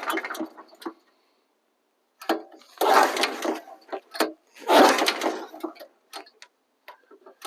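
Small gas engine on a Norwood LM30 sawmill dying out right at the start as it runs out of fuel. After a second or so of quiet come three short noises, the last two longer, with a few small clicks between them.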